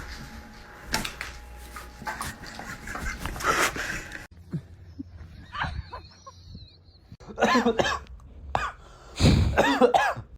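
A dog vocalising in short bursts: huffs, then a couple of whiny, wavering yowls near the end.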